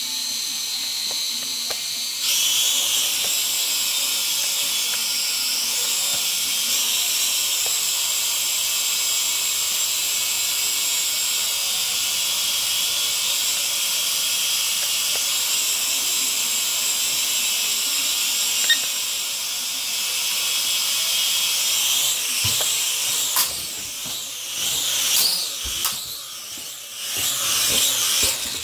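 Syma X5HW quadcopter's small motors and propellers whining steadily at a high pitch, stepping up louder and higher about two seconds in as the throttle rises. In the last several seconds the whine wavers up and down in pitch, with a few sharp knocks.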